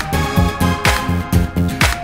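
Background music with a steady beat, a prominent bass line and sustained pitched synth-like tones.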